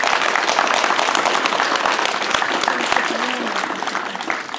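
A crowd applauding, with many hands clapping densely; the clapping tails off near the end.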